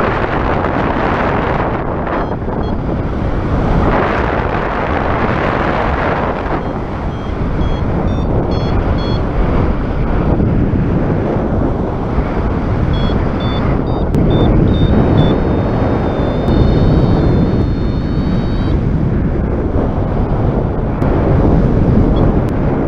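Strong gusty wind buffeting the microphone, swelling and easing every few seconds. Faint short high-pitched beeps come through it in a few clusters.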